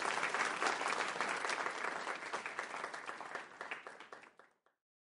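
Audience applauding at the end of a lecture. The clapping is fullest at first, then thins and dies away a little before the end.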